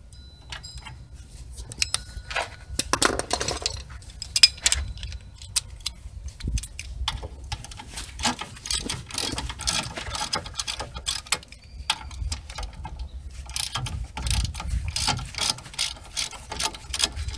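Ratchet wrench and socket clicking in quick runs while backing out the 17 mm caliper bracket bolts: three spells of rapid clicking, near the start, in the middle and near the end.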